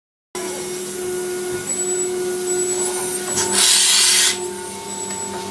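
After a moment of silence, a small wheeled robot's machinery hums steadily. About three and a half seconds in comes a loud hiss lasting under a second: one-pack polyurethane foam being sprayed from the robot's can through its hose into the ditch.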